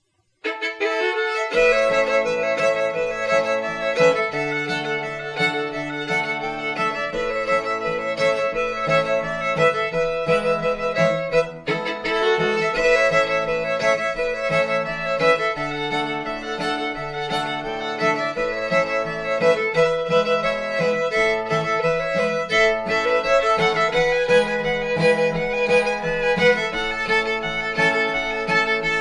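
Background music: a fiddle tune over a steady rhythmic accompaniment, starting about half a second in.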